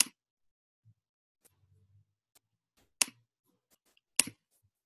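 Three sharp clicks on a computer's pointing device as photos on a web page are selected and opened: one at the start, one about three seconds in and one about a second later, with a few faint ticks between them.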